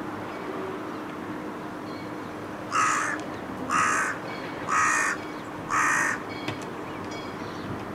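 Carrion crow cawing four times, evenly spaced about a second apart, each caw short and harsh.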